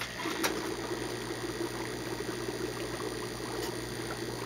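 Coralife SL38 electric air pump switching on and running with a steady hum, air bubbling up through the still-empty upflow algae scrubber. A single click comes about half a second in.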